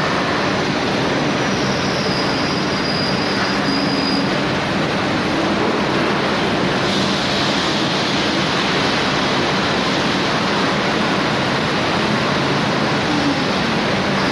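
Rotary veneer peeling lathe running, a loud steady mechanical din as it peels logs into thin veneer. A thin high whine rises above it briefly about two to four seconds in.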